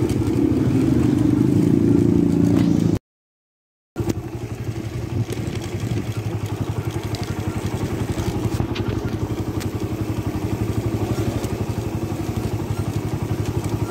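Suzuki Raider motorcycle engine running while being ridden. It drops out for about a second some three seconds in, then comes back as a steady, rapidly pulsing engine note.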